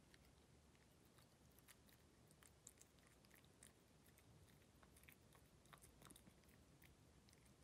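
Ragdoll cat eating soft wet pâté cat food from a ceramic bowl. Faint, irregular small clicks and smacks of licking and chewing begin a second or two in.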